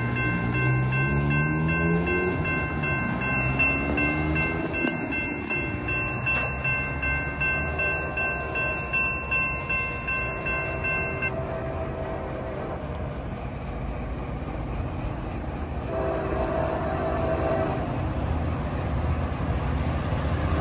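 Train passing, its locomotive engine rising and falling in pitch, with a steady high ringing tone that cuts off about halfway through. The locomotive horn sounds in blasts about halfway through and again near the end.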